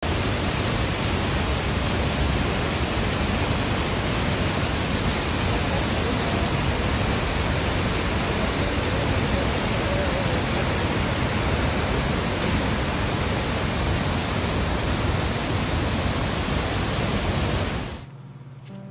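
Cheonjiyeon Waterfall's water falling into its pool, a steady, even rush of noise that cuts off abruptly near the end.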